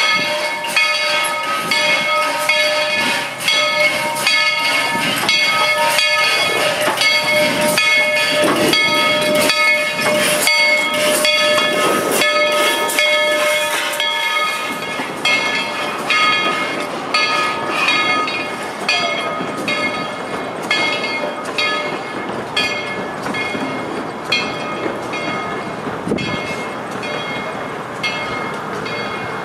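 Narrow-gauge steam train, 1917 Baldwin 4-6-0 No. 12 with its coaches, rolling past with a steady run of clicks and clatter from the wheels. A set of high, steady ringing tones sounds over it and fades out about halfway through.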